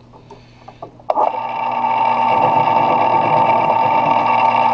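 Metal lathe switched on about a second in and running steadily with a loud, even whine.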